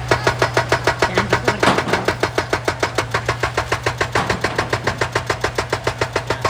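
Excavator-mounted hydraulic breaker hammering rock in rapid, evenly spaced blows, about eight a second, over the machine's steady engine hum.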